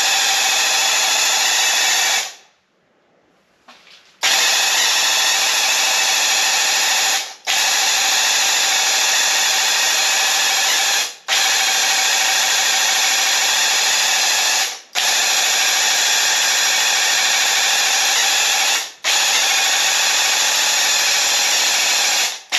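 Graco Ultimate QuickShot cordless airless paint sprayer pump running loud and steady during spray passes, stopping and restarting each time the trigger is let go. It stops once for about two seconds early on, then for a moment about every four seconds.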